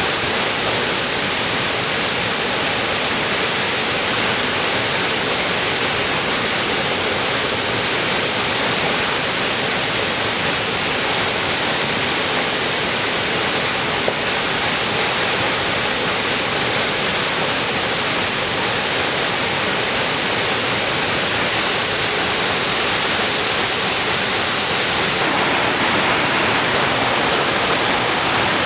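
Waterfall: a steady, loud rush of falling water, even throughout and shifting slightly near the end.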